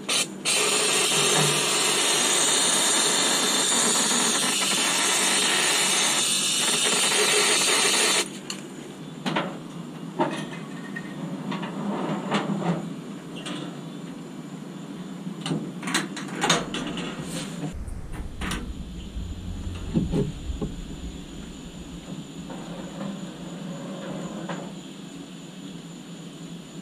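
Powder coating spray gun blowing a steady hiss of compressed air and powder, which breaks off for a moment at the start and then cuts off sharply about eight seconds in. After that come scattered light clicks and knocks as the coated part is handled at the curing oven, and a low hum comes in a little past halfway.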